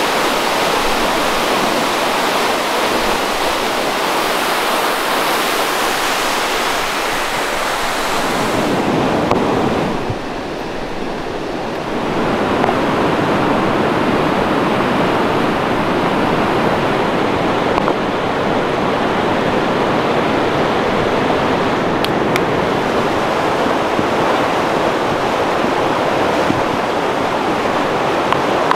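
Steady rushing of running water, a mountain stream or river. Its tone changes about eight seconds in, with a short dip in level soon after.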